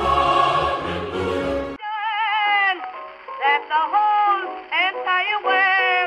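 An early-twentieth-century vocal record: a singer with wide vibrato and swooping phrases over a small band, sounding thin, with no deep bass or bright top. About two seconds in it cuts in sharply after a louder, fuller stretch of sound.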